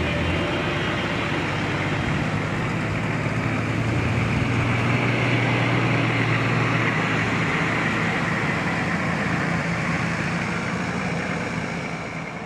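A vehicle engine running steadily with a low hum under a broad rush of noise, fading out near the end.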